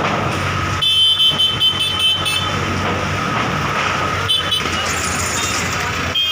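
Street traffic running steadily, with vehicle horns honking in short broken blasts about a second in, and another brief honk past the middle.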